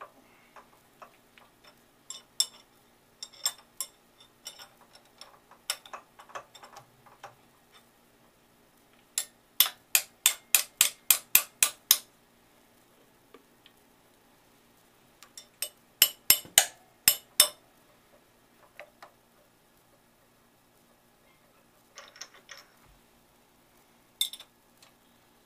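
Metal tooling being tapped and handled by hand: a run of about ten sharp metal taps roughly nine seconds in, about four a second, then a second run of about seven a few seconds later. Scattered lighter clinks and knocks fall between them.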